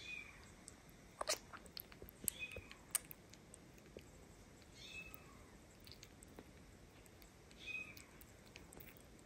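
Very young kitten suckling milk from a feeding bottle's nipple: faint wet smacking and clicking sucks, with a short high squeak about every two and a half seconds.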